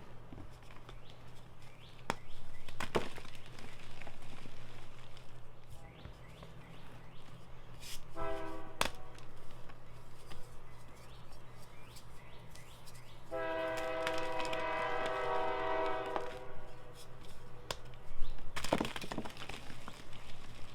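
Powdery Ader blocks being crushed, with scattered crunches and crumbling and the loudest crunch near the end. Twice a steady horn-like tone sounds, a short blast at about eight seconds and a longer one of about three seconds a little later.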